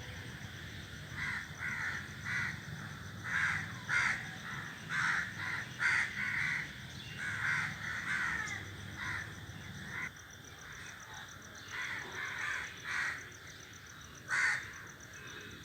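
A flock of crows cawing, many harsh caws overlapping in clusters, with a lull about ten seconds in and one last loud caw near the end.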